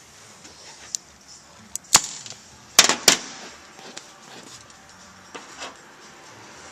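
Small metal screws and parts tapping and clinking on a steel workbench top as they are handled and set down: a few sharp knocks, the loudest a close pair about three seconds in, with lighter taps before and after.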